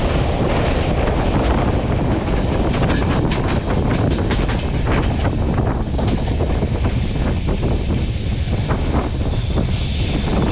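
Passenger train running along the line: a steady wheel-and-rail rumble with quick clicks from the track and wind buffeting the microphone. A thin high whine comes in about seven seconds in.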